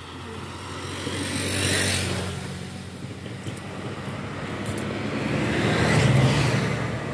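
Two motor vehicles driving past on the road, each engine and tyre noise swelling up and fading away: one about two seconds in and a louder one about six seconds in.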